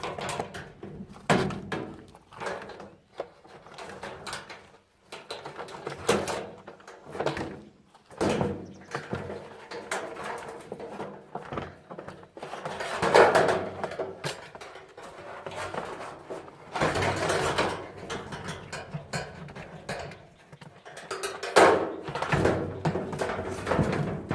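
Washing machine parts being taken apart by hand: irregular knocks, clatter and scraping of metal and plastic pieces, with a few louder clanks and longer scrapes.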